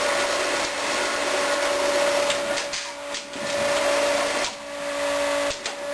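Vacuum generator of a Schmalz VacuMaster Basic vacuum lifter running with a steady hum and hiss. A few short clicks come around the middle, and the sound dips briefly twice.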